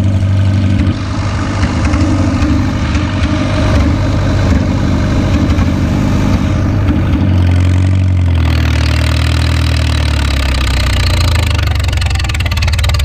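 McCormick-Deering Super M tractor's four-cylinder gasoline engine running as it drives along the road. About seven seconds in, the engine note drops as it slows down, then runs steady at the lower speed.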